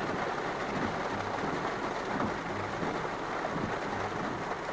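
Heavy rain pouring steadily, heard from inside a car.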